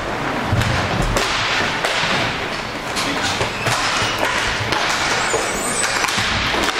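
Inline hockey play: irregular sharp clacks and slaps of sticks and the puck, every second or so, over a steady noisy background of the rink.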